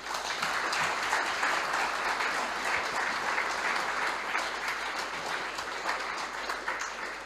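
Audience applauding, a steady dense clapping that begins to taper off near the end.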